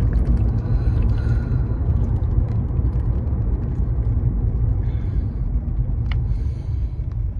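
Steady low rumble of a car heard from inside the cabin, with a few faint swallowing ticks as water is gulped from a bottle.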